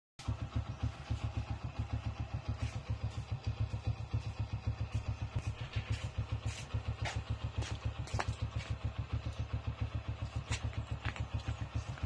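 Motorcycle engine idling: a steady, even low pulse of several beats a second, with a few scattered light clicks over it.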